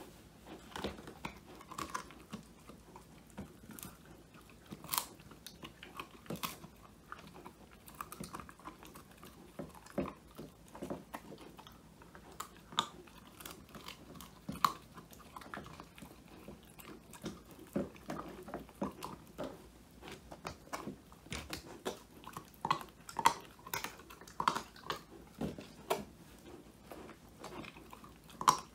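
An Old English Sheepdog puppy chewing and crunching a homemade whole-quail treat, with irregular sharp crunches as it bites down.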